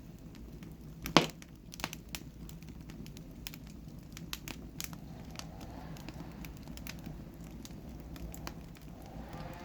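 Wood fire crackling in a fireplace: scattered sharp snaps and pops over a low steady rush of burning, with one loud pop about a second in.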